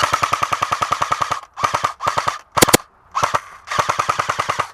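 Airsoft electric gun firing on full auto, a rapid rattle of about fifteen shots a second with a whine from the gearbox. It fires a burst of over a second, four short bursts, then another burst of about a second.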